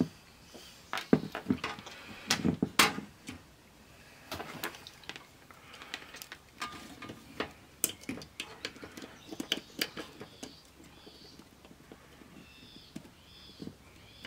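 Scattered sharp clicks and taps of metal test probes and a small adjusting tool knocking against a CD changer's optical pickup assembly. The loudest taps come in the first few seconds. Near the end a faint run of short high chirps repeats about twice a second.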